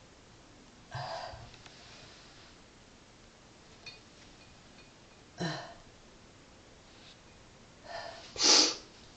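A cat sneezing three times in short, sharp bursts. The last is a quick double and the loudest.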